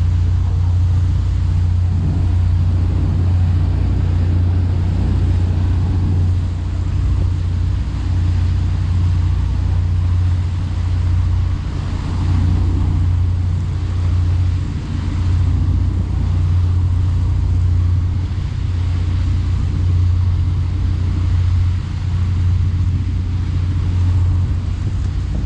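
Boat engine running at a steady speed: a deep, even drone with a rushing noise over it.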